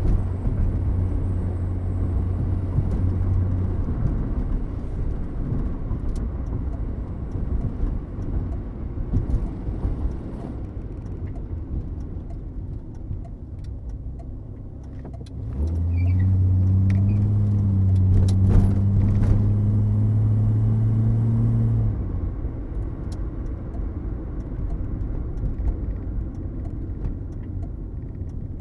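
1979 Mercury Zephyr sedan running, with a steady low rumble throughout. A louder, steady low engine drone comes in about halfway through and drops away about six seconds later.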